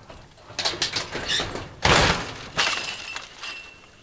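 Galvanised steel-tube frame and chain-link mesh of a mobile duck tractor clattering and rattling as it is brought down over a sheet-metal duck house, with a loud metal crash about two seconds in and a ringing metallic note after the next clank.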